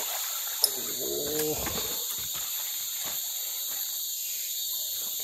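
Steady high-pitched drone of insects. A sharp click comes just over half a second in, and a short low voice-like sound about a second in.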